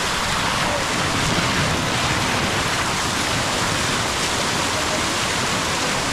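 Steady rushing of flowing water, an even roar that holds at one level throughout.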